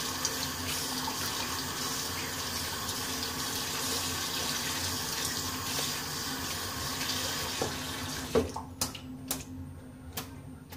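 Bathroom sink tap running while a shaving brush is rinsed under it. The water shuts off about eight seconds in, followed by a few sharp knocks.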